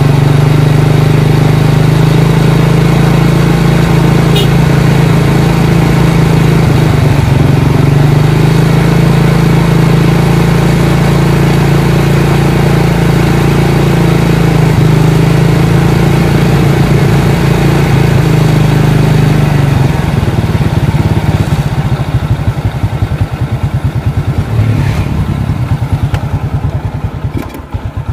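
Freshly reassembled Honda Karisma 125 single-cylinder four-stroke engine running steadily at idle. After about twenty seconds the engine speed sags and the beat turns ragged and uneven, wavering and dipping near the end.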